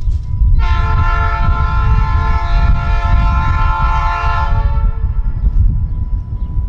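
Freight locomotive's multi-chime air horn sounding one long blast of about four seconds, several notes together, starting about half a second in. A steady low rumble runs underneath.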